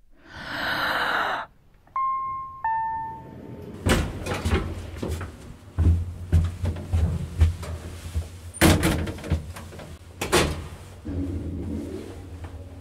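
Sound-effects sequence: a short whoosh, then two chime notes falling in pitch, then a series of knocks and thuds over a low hum, with the loudest thuds about two thirds of the way in.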